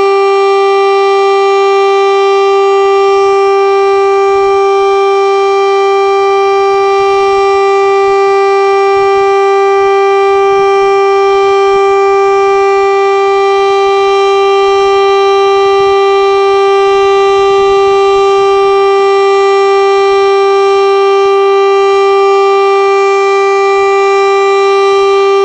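KIRKE 400 civil defence siren sounding a loud, steady tone that holds one pitch without rising or falling: the continuous test tone of the monthly siren test.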